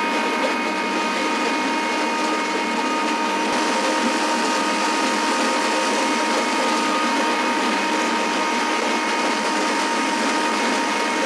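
Steady machinery running at constant speed: an even hum with a high whine that holds one pitch throughout.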